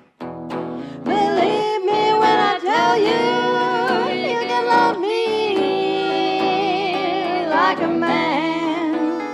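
Acoustic blues band playing. About a second in, a loud lead melody with bent, wavering notes comes in over acoustic guitar.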